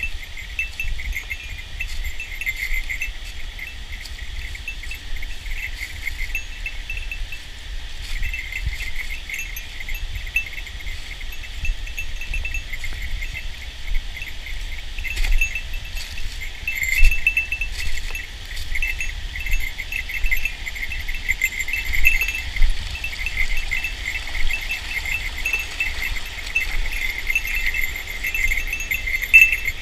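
A steady chorus of high-pitched, rapidly pulsing chirring from calling insects, swelling in bouts. Scattered short knocks and a low rumble run underneath.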